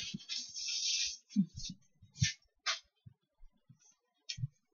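Knife cutting through a flaky, crunchy pie crust: about a second of scraping, then several short crunches and taps.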